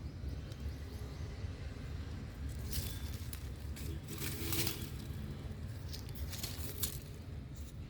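Hands digging through loose, fluffy potting soil in a grow bag, rustling and scraping in three short bursts over a steady low rumble.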